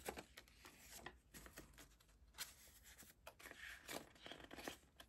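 Faint rustling and handling of paper banknotes and the plastic envelope pages of a ring binder, with many small scattered clicks and rustles. A slightly louder click comes right at the start from the binder's metal rings.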